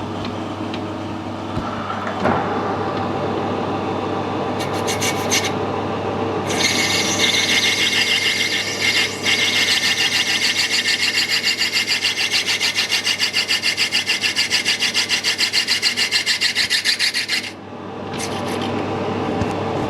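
Metal lathe running while a brass part is worked on it: a steady hum, then from about six seconds in a loud rasping cut that pulses about five times a second, stopping abruptly near the end.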